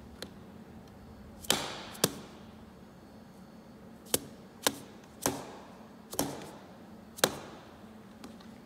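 Soft hammer striking the top of an aluminum workpiece bolted to a steel piece and resting on parallels in a mill: about seven sharp blows at uneven spacing, some in quick pairs, a few ringing briefly. The blows seat the parallels so they stop moving.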